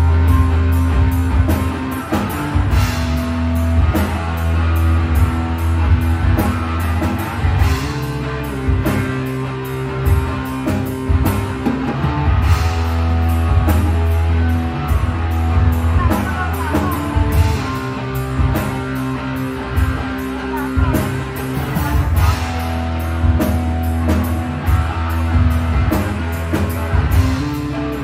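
Live rock band playing an instrumental passage, with amplified electric guitars and held low bass notes over a steady drum-kit beat.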